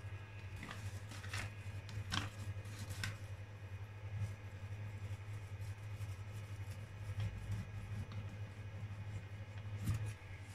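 A cloth rubbed and patted over a 3D printer's build plate: soft rustling and scraping, with a few sharp clicks, most of them in the first three seconds and one near the end. The printer's low steady hum runs underneath.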